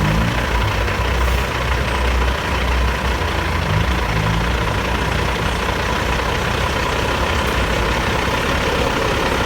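Bulldozers' heavy diesel engines running with a steady low rumble, with a thin steady whine over the noise.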